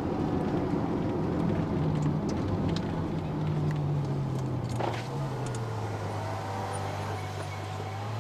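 Ferrari F12 Berlinetta's V12 engine heard from inside the cabin at a light, steady cruise, its pitch slowly falling, over road noise. A single sharp click about five seconds in.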